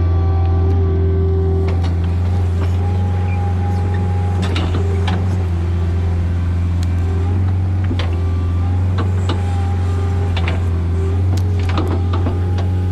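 Excavator diesel engine running steadily under working load, its pitch shifting slightly now and then, with scattered sharp cracks and knocks from the stump shear at work.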